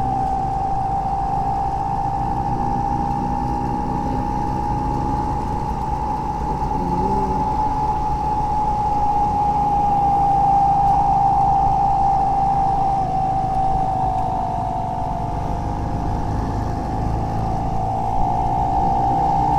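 Motorcycle on the move: engine and road rumble, with a steady high whistling tone over it that drifts only slightly in pitch.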